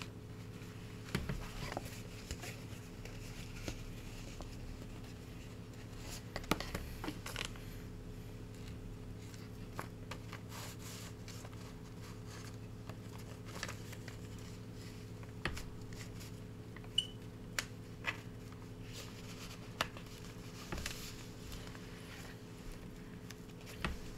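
Hands handling paper envelopes and binding thread: scattered light rustles, scrapes and small clicks and taps, over a steady low hum.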